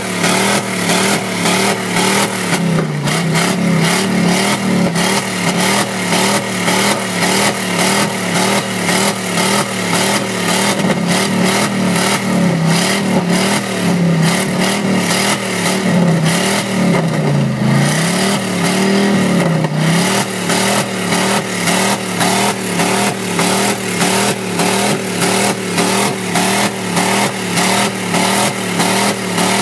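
Chevrolet 1500 pickup's 350 small-block V8 held against its rev limiter, the engine note cutting in and out in a rapid, even stutter. Between about 12 and 20 seconds in, the revs dip and climb back to the limiter a few times.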